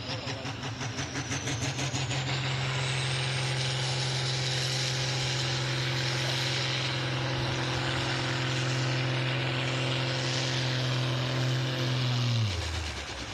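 Farm diesel tractor pulling a weight sled at full throttle, its engine holding one steady pitch under heavy load, with a high whine rising over the first couple of seconds. Near the end the engine speed drops sharply as the pull bogs down, with too high a gear engaged.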